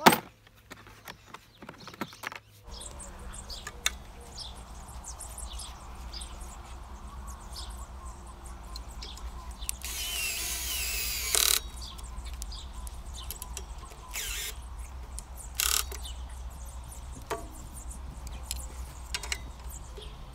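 Cordless drill-driver running in short bursts as it drives screws into the shredder's stand frame. The longest burst comes about ten seconds in and lasts about a second and a half, with two brief ones a few seconds later.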